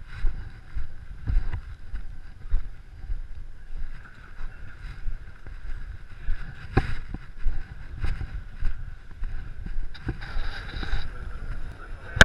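Low, gusting rumble of wind and handling noise on a carried wide-angle camera's microphone, with scattered knocks and one sharper knock about seven seconds in. A brighter hiss rises briefly near the end.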